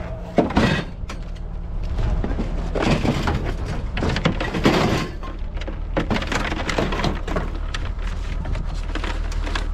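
Clattering and knocks of scrap items being handled and moved around a curbside junk pile, over a steady low hum.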